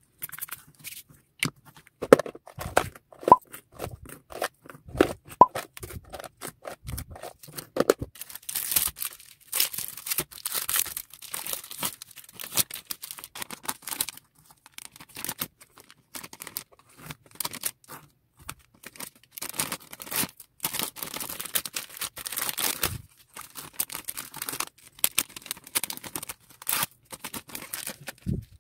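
Clear plastic bags crinkling and rustling as fuse-bead keychains are handled and slipped into them, with many small clicks and taps.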